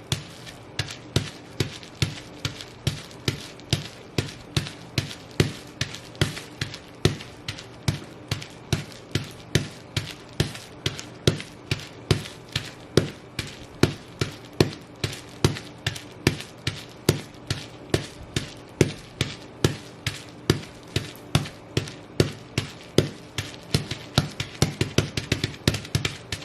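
Bubble wrap being stomped flat under fur-trimmed sheepskin boots: a steady run of sharp pops and crackles, about two to three a second.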